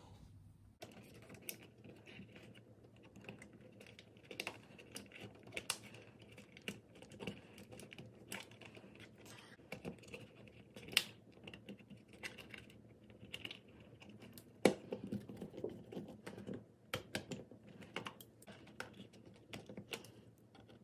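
Irregular small clicks and taps of needle-nose pliers and fingers working thin thermostat wires, straightening them and pushing them into the push-in terminal connectors of a thermostat base plate.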